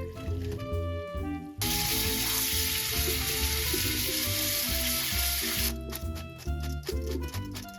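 Food sizzling in hot oil in a frying pan, starting suddenly about a second and a half in and cutting off after about four seconds, over background music.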